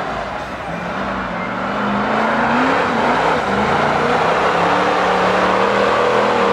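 Lifted Jeep on tractor tires running hard through a mud pit. Its engine revs, with the pitch wavering up and down as the tires spin and sling mud.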